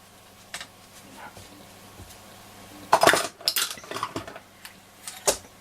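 Small metal screws and parts clinking as they are gathered into a small tub. There are a few light clicks, a burst of clinks about three seconds in, and more scattered ticks afterwards.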